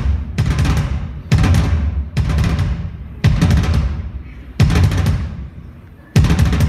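Live drum kit: heavy accented hits of bass drum and toms struck together with crash cymbals, each left to ring out and fade. The accents come about a second apart and slow to about a second and a half apart by the end.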